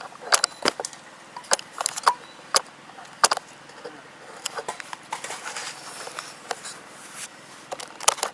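A run of irregular sharp clicks and knocks, several a second, over faint background noise.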